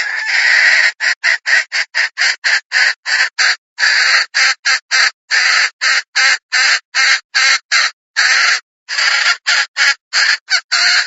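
Red junglefowl hen calling in a rapid run of short, harsh clucks, about three a second, broken by a few longer notes at the start and again around four, five and eight seconds in.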